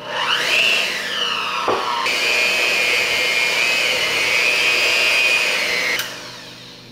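Cuisinart electric hand mixer beating cake batter: the motor spins up with a rising whine, runs steadily, and is switched off about six seconds in.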